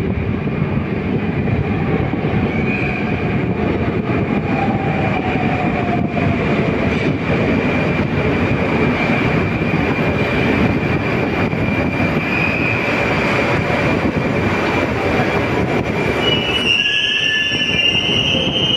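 81-760A "Oka" metro train pulling into the station and braking: a loud rumble of wheels on rails with a steady high squeal and a whine that falls in pitch as it slows. About 17 seconds in the rumble drops away as the train comes to a stop, leaving a higher brake squeal.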